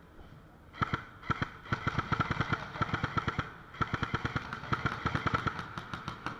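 Airsoft guns firing rapid full-auto bursts, a quick string of sharp cracks starting about a second in, with a brief pause midway before more bursts.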